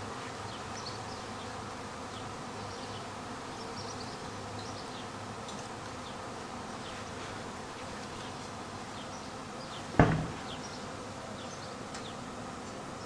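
Honeybee swarm buzzing, a steady dense hum. About ten seconds in, a single sharp knock is the loudest sound.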